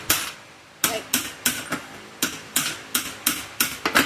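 Small steel hydraulic hose fittings clinking against each other and against a hard surface as they are handled and dropped one at a time, about a dozen sharp clinks at roughly three a second, some with a brief metallic ring.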